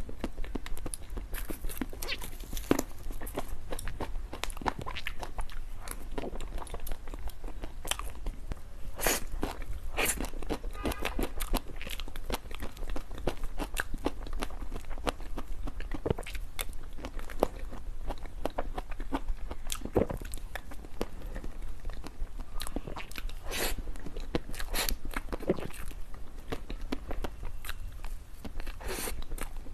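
Close-miked biting and chewing of dessert, a dense, irregular run of sharp crackles and clicks from the mouth, as in mukbang eating sounds.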